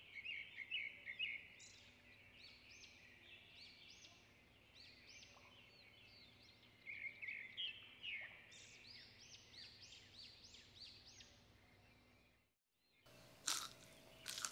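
Faint chorus of small birds chirping and twittering, with many quick rising and falling calls overlapping. It cuts out briefly near the end, followed by two sharp clicks.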